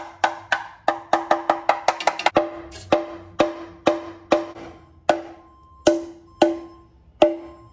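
Repeated hammer blows on a car's steel oil pan, each one ringing briefly at the same pitch. The pan is stuck on its gasket after all the bolts are out. The blows come quickly at first, about a dozen in the first two and a half seconds, then slow to roughly one a second.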